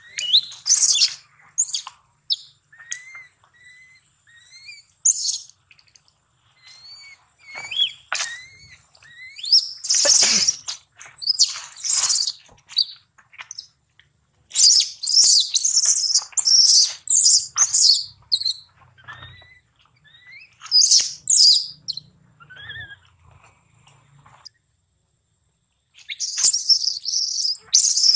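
Infant macaque screaming in repeated high-pitched shrieks that come in bursts with short pauses, typical distress calls. The screaming breaks off for over a second near the end, then resumes.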